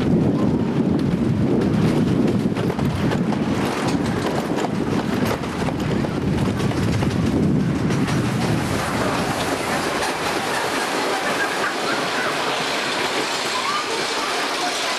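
Wooden roller coaster train rumbling along the track, with wind on the microphone. The rumble eases about eight seconds in as the train slows through the brake run and rolls into the station.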